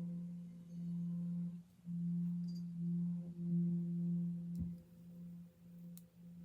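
Himalayan singing bowl ringing with a steady low hum and a few higher overtones, swelling and dipping in waves, then carrying on more quietly for the last couple of seconds.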